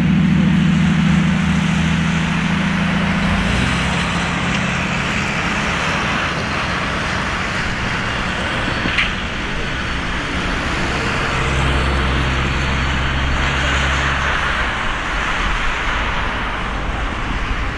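Boeing 767-300ER's twin turbofan engines running at low taxi thrust as the airliner turns on the runway: a steady jet rush with a low hum that fades a few seconds in and comes back for a few seconds past the middle.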